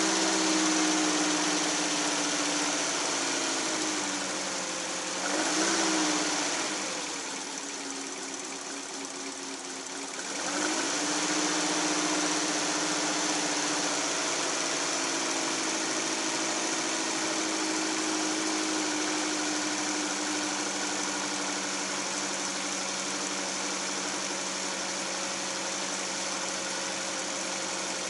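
Toyota AE101 five-valve-per-cylinder 4A-G four-cylinder on 50 mm Weber carburettors, idling. About five seconds in there is a short rev; the engine then runs lower and quieter for a few seconds before picking back up to a steady idle.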